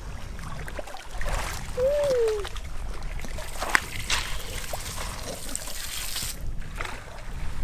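Water trickling and splashing from a homemade 120-volt electric pump setup drawing lake water, with a steady low rumble under it. There is a short falling tone about two seconds in and a few sharp clicks around four seconds in.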